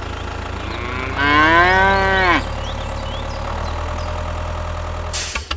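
A cow moos once, about a second in, a call of a bit over a second that rises and then falls in pitch, over a steady low engine hum.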